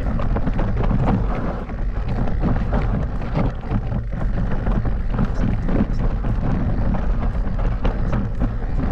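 Steady low rumble of wind buffeting the microphone, with frequent knocks and rattles, as from a mountain bike ridden over rough ground.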